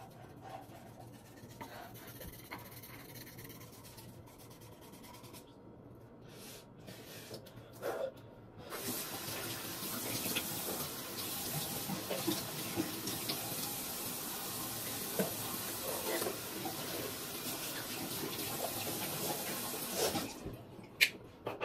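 Faint toothbrush scrubbing, then a bathroom sink tap running steadily from about nine seconds in. The water cuts off about a second and a half before the end.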